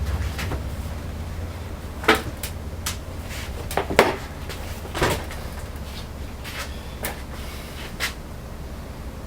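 A few sharp knocks and clunks, the loudest about four seconds in, over a steady low hum.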